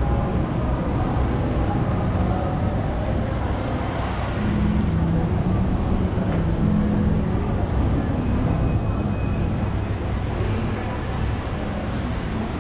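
Shopping-mall atrium ambience: a steady din of indistinct voices over a strong low rumble, with no single sound standing out.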